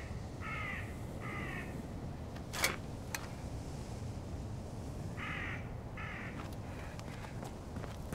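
A crow cawing: three short caws in a row near the start and three more about five seconds in, over a low steady rumble. A sharp click about two and a half seconds in.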